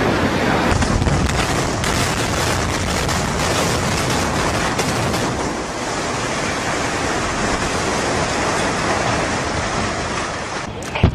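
Building demolition: a steady, loud rushing rumble of collapsing debris and billowing dust, with a few sharp cracks, and a sharp bang near the end.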